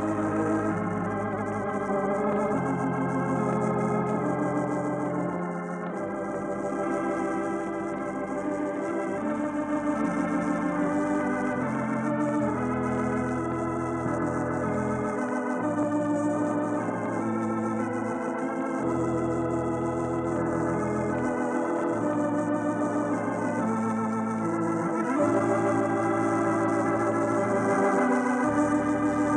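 Organ music: sustained chords over a slow bass line that steps to a new note every two or three seconds.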